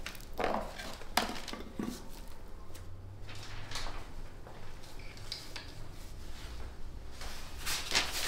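Scattered light knocks and clatter of plastic paint tubs and jars being handled and set down on a floor, a few separate knocks spread over several seconds, the sharpest about a second in and near the end.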